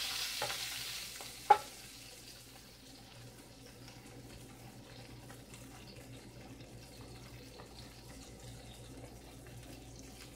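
Butter frying around a toasted sandwich in a nonstick skillet. The sizzle is loudest for the first second or two, then settles to a quieter, steady crackle. A single sharp tap comes about a second and a half in.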